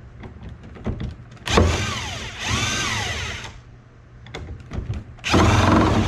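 Cordless DeWalt power tool spinning a socket on the top nut of a removed rear shock absorber, in three bursts, the motor's pitch rising and falling each time, with a few clicks between bursts.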